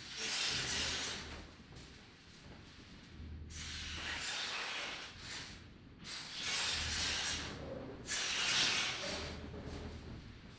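Sound installation giving out swells of rustling hiss, four in a row, each lasting a second or two with a low rumble beneath, separated by quieter gaps.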